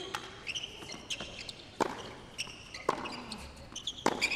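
Tennis ball struck back and forth by rackets in a rally, sharp hits about once a second, with shoes squeaking on the hard court between them.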